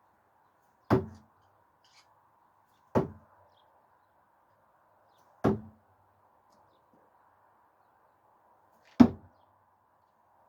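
Thrown screwdrivers hitting a target board: four sharp knocks spaced a few seconds apart, the last the loudest.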